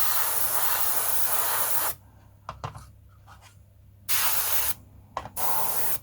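Airbrush spraying a grime weathering wash in three bursts: one long burst of about two seconds, then two short ones about four and five seconds in. Faint clicks come in the pauses between them.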